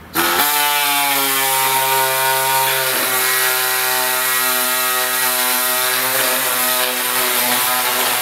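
Small handheld power tool running steadily at a constant pitch with a strong hiss as it cuts into a plastic side bracket, its pitch sagging slightly under load about three seconds in.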